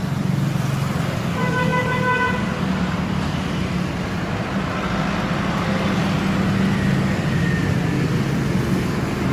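Road traffic: a steady low engine hum, with a vehicle horn tooting once for just under a second about a second and a half in.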